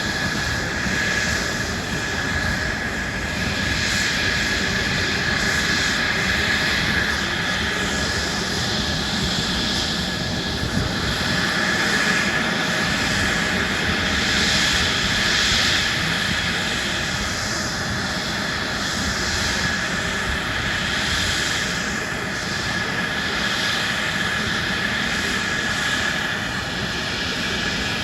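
Airplane engine running in flight: a steady rushing noise with a high whine, swelling a little around the middle.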